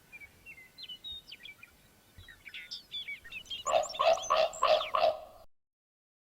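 Birds calling: short high chirps and twitters, then a louder run of about six lower-pitched calls at roughly four a second, cutting off abruptly.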